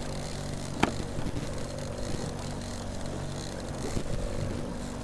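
Fishing boat's engine running steadily while trolling, a constant hum under a hiss of wind and water. A single sharp click sounds about a second in.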